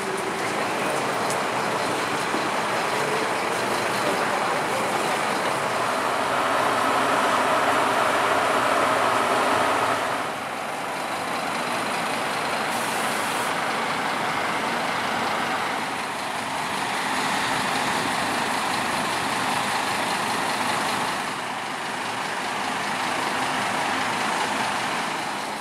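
Scania K230UB double-deck bus's diesel engine idling steadily, with a louder rushing layer over it that cuts off suddenly about ten seconds in, and a brief hiss a few seconds later.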